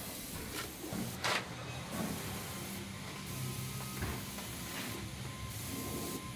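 Hose-fed spray wand hissing as asphalt-emulsion undercoating is sprayed onto a vehicle's underbody, with a brief sharper spurt about a second in and a faint low hum beneath.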